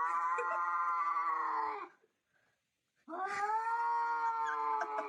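A dog howling: two long, steady howls of about two seconds each, about a second apart.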